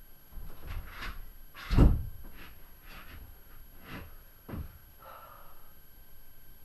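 Knocks and clunks from hands-on building work, pulling and handling pieces. About seven sharp knocks, the loudest a heavy thump about two seconds in, then a brief scrape about five seconds in.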